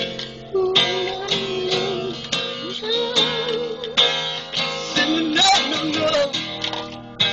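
Acoustic guitar played as a blues, with strummed chords and picked single notes between the strums.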